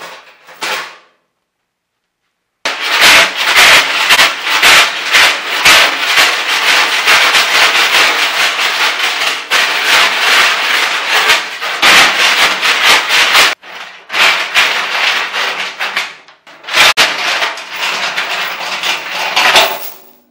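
Steel chains clattering and banging around inside the empty steel fuel tank of a 1976 Mazda RX-5 Cosmo as the tank is shaken hard: the old 'chaining out' trick to knock loose rust and debris from inside. It is a fast, loud, continuous rattle that drops out briefly twice, after a few clinks of chain going into the filler hole at the start.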